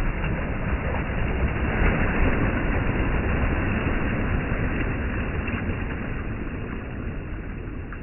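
Black Sea surf on a pebble beach: a small wave breaks and washes up the shingle, its rushing peaking about two seconds in and then slowly receding, with a few faint clicks.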